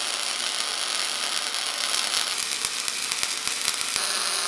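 Electric arc welding crackling and sizzling, with dense sharp pops in the second and third seconds. About four seconds in it switches to a MIG welding arc: a steadier hiss with a low steady hum.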